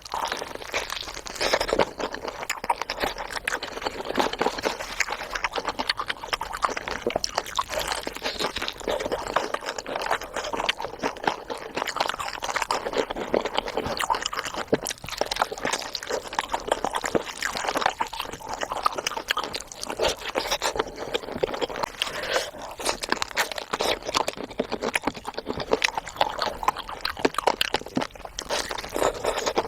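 Close-miked mukbang eating sounds: continuous chewing with many quick, crackly clicks.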